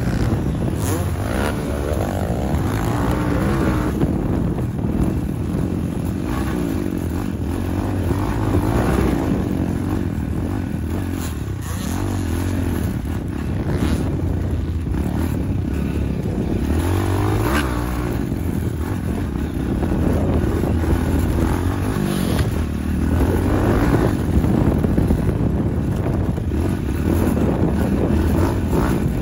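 Motocross dirt bike engine running hard through a practice lap, heard close up from a camera mounted on the bike or rider, its pitch rising and falling as the throttle is worked.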